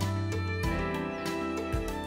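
Background music: held instrumental notes over a regular low beat.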